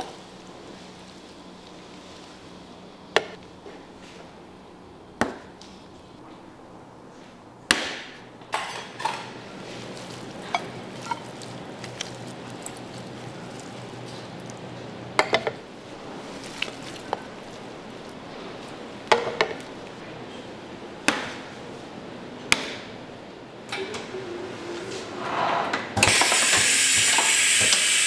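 Scattered sharp knocks and clinks of kitchen work with utensils and containers, about a dozen spread out with pauses between. Near the end a loud, steady hiss of machine noise starts suddenly and lasts about two seconds.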